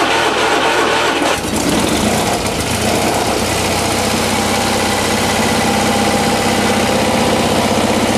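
Simplicity 7117 garden tractor's gas engine being cold-started with a battery charger boosting the battery. The starter cranks it until it catches about a second and a half in, then the engine settles into a steady idle.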